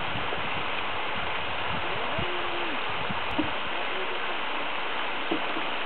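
Steady rushing of water spilling down a small rock waterfall into a pond, with a few faint, distant voices.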